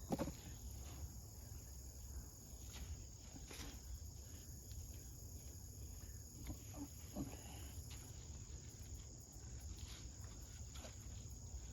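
Insects chirring in a steady high, even tone, with a few faint rustles and scrapes of hands digging through loose container soil.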